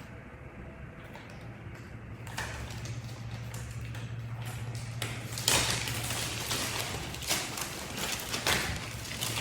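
Cordless vacuum parts and their plastic packaging being handled during unboxing: rustling and clicking from about two seconds in, with a few sharper knocks, over a low steady hum.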